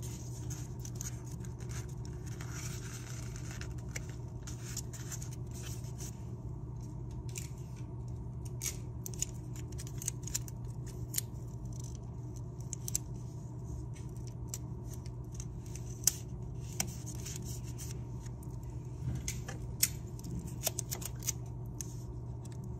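Paper being folded and creased around a cardboard square and pressed down with tape: irregular crinkling, rustling and small sharp clicks and taps, over a steady low hum.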